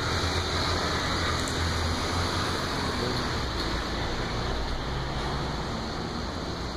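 Steady street traffic noise: a low engine rumble under a constant hiss.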